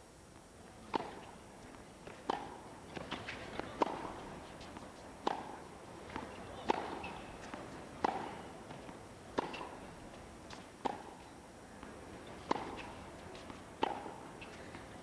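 Tennis ball hit back and forth with racquets in a long baseline rally: about ten sharp strikes, one every second and a half, with fainter knocks between.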